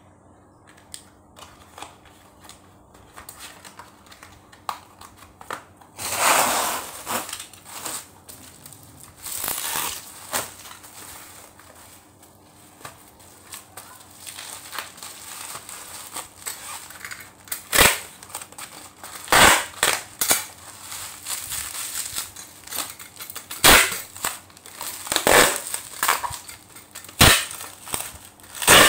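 Plastic bubble wrap crinkling and crackling as it is folded around a small box by hand, with a handful of sharp snaps in the second half.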